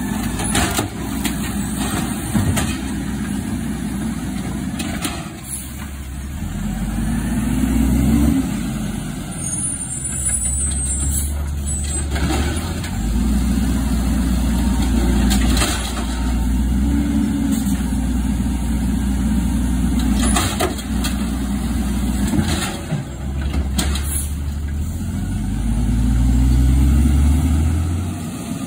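Automated side-loader garbage truck at work: its diesel engine revs up and settles back in steps as the hydraulic arm lifts and empties carts. A handful of sharp clanks and bangs come from the cart and the arm.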